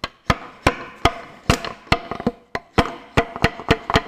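Repeated sharp knocks of a wooden broom handle driving a piston out of its cylinder bore in a Ferguson 23C diesel engine block, about three blows a second, each with a short ring from the cast-iron block.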